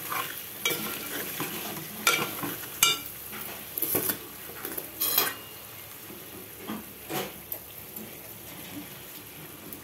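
Steel spoon scraping and clinking against a metal pot as chicken is stirred while it fries down on a low flame, over a faint steady sizzle. The scrapes come about once a second and die away after about seven seconds, leaving only the sizzle.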